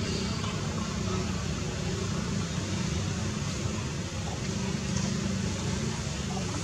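Steady low rumble with an even hiss over it, without distinct events.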